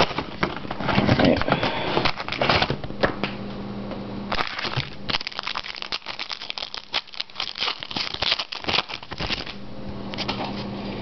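Foil card-pack wrappers crinkling and tearing as trading-card packs are opened, with cards being riffled and handled in dense crackly clicks. A faint steady low hum runs underneath.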